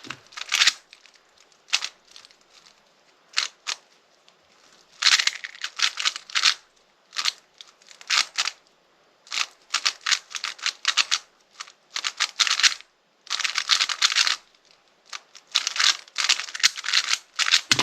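Rubik's cube being turned fast during a timed speedsolve: rapid plastic clicking and clacking of the layers, in bursts of quick turns broken by short pauses.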